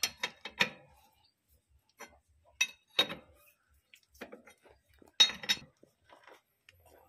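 Sharp metal clinks of a spanner being fitted and turned on the nut of a tractor's steering tie-rod end as it is tightened. The clinks come in scattered clusters, the loudest about five seconds in.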